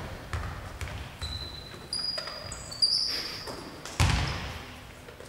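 A basketball bouncing on the sports hall floor, several irregular echoing thuds, the loudest about four seconds in. Short high squeaks, like trainers on the floor, come between about one and three seconds in.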